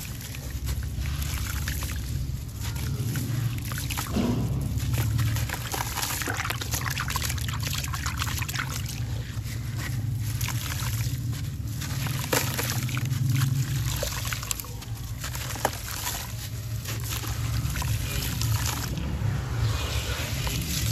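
Wet gritty sand-cement chunk squeezed and crumbled by hand in a tub of muddy water: water trickling and sloshing, with many small gritty crackles as the chunk breaks apart. A steady low rumble runs underneath.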